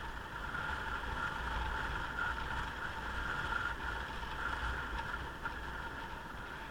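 Motorcycle riding at a steady pace: an even engine drone over a low rumble of road and wind noise.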